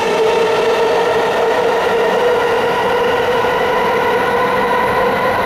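JR Keiyo Line electric train moving through the station: loud, steady running noise with a constant pitched whine over it.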